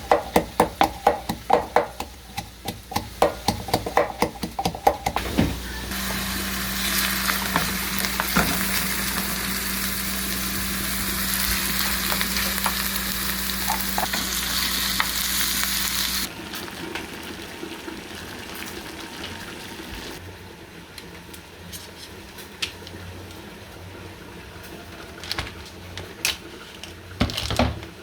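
Quick repeated knocks, several a second, for the first few seconds; then food frying in a pan with a steady loud sizzle that cuts off abruptly about halfway through, leaving quieter kitchen sounds with a few scattered clinks.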